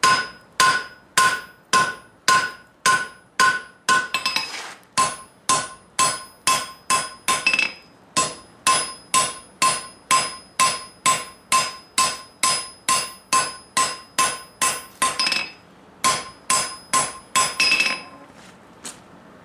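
Blacksmith's hand hammer striking red-hot steel on the anvil face at about two blows a second, each blow followed by the anvil's bright ring. These are finishing blows, smoothing the bar and cleaning it up. The hammering pauses briefly a few times and stops shortly before the end.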